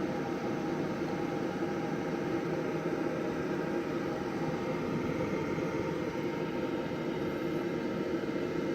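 Combustion fan of a Green Mountain Grills Davy Crockett pellet grill running steadily, a whooshing hum with a faint motor whine, during start-up while the pellets smoke on the new igniter before catching fire.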